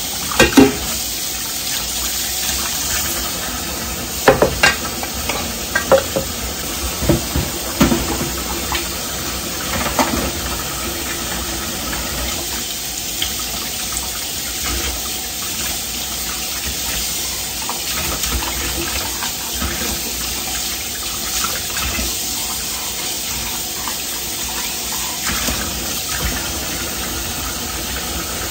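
Kitchen tap running into the sink during dishwashing, a steady rush of water. Dishes knock and clink against each other several times in the first ten seconds.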